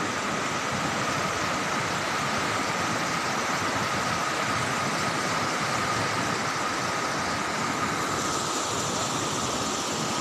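Swollen river in flood rushing past, a steady, even rush of churning water.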